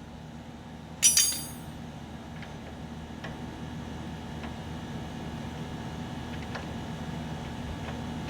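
Metal hand tools clinking: one sharp metallic clink with a short ring about a second in, then a few light ticks, over a steady low hum.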